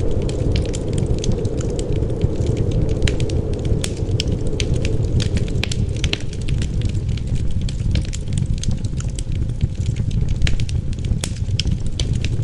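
Wood fire crackling, with frequent irregular sharp pops over a steady low rumble of wind.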